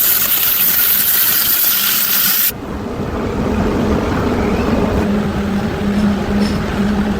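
A loud, even hiss for about two and a half seconds, then an abrupt change to a small motor running with a steady hum.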